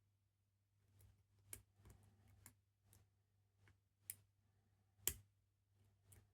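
Faint, scattered clicks and light scraping of a lock pick and tension wrench working the pins of a small Squire padlock, with a sharper click about five seconds in. The pins keep dropping back as they are picked.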